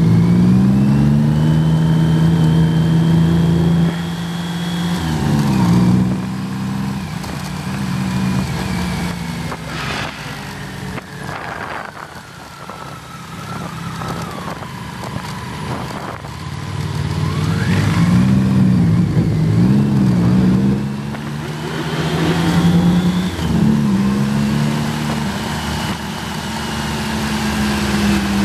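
1988 BMW K75's inline three-cylinder engine running at low speed, its note rising and falling with throttle and gear changes, over wind noise. It drops to a quieter, lower note through the middle, then picks up again for the rest.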